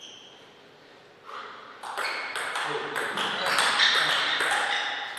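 Table tennis rally: the ball clicking off the rackets and the table in quick alternation, about three hits a second, starting about two seconds in.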